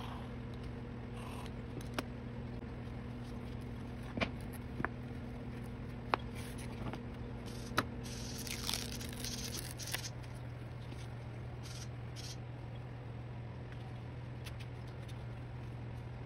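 Small wooden pieces handled on a plywood bench: about half a dozen sharp clicks and taps, spread out, with a short scrape about nine seconds in, over a steady low hum.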